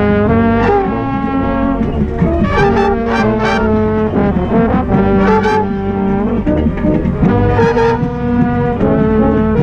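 Marching band brass playing together in held, loud chords that change about every second, with several sharp accented attacks. A brass horn played right at the microphone is loudest, with trumpets alongside.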